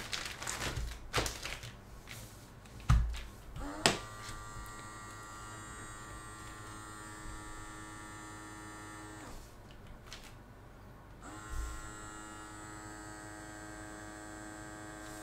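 A few knocks and plastic rustles as the bag is handled, then the small electric vacuum pump of a Polyalchemy Airlock filament storage bag starts about four seconds in with a steady whine, drawing the air out of the bag. It stops briefly around nine seconds and starts again a couple of seconds later.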